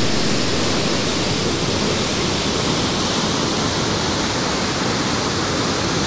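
Water of a large waterfall rushing: a loud, steady, unbroken roar.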